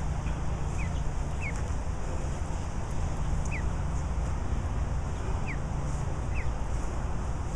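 Goslings peeping: several short, high peeps, each falling in pitch and coming at irregular intervals, over a steady low rumble.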